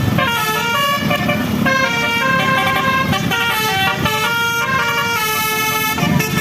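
Bus telolet horn of the basuri type, a set of air horns playing a tune, its notes stepping up and down several times a second over a low rumble.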